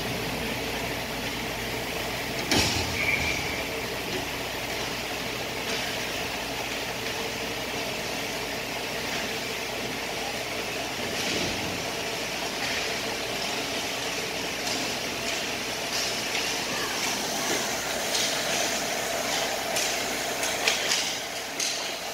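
Ice hockey rink during play: a steady hum fills the arena, with skates scraping on the ice and the clack of sticks on the puck. One sharp knock comes a few seconds in, and a cluster of clacks near the end as play moves close.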